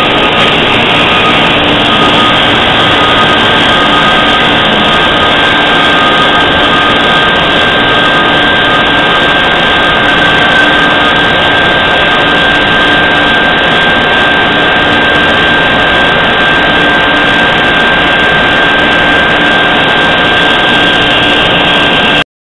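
Cincinnati Maxim 630 horizontal machining center running: a loud, steady rushing noise with several steady high whining tones over it. It cuts off abruptly near the end.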